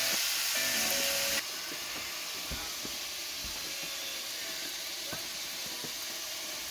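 Chorizo and eggs sizzling in a frying pan: a steady hiss with a few faint pops. Music plays over the first second and a half, then cuts out.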